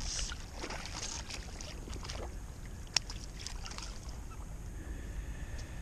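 Water splashing and lapping around an inflatable float tube as a hooked crappie is brought alongside by hand, with small irregular splashes in the first couple of seconds over a steady low rumble. One sharp click about three seconds in.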